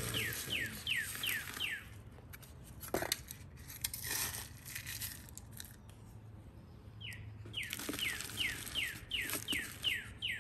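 Month-old chicks peeping in fast runs of falling chirps, about three a second, first at the start and again from about seven seconds in. Between and under them is the rustle of chick feed being poured from a paper scoop into a plastic feeder tray, with a few light clicks.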